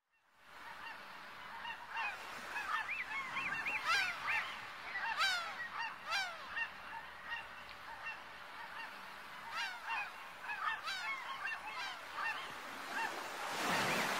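Gulls crying in a flock: many short overlapping calls, with several steep downward-sliding cries, over a faint steady wash. A rising swell of noise builds in the last second or so.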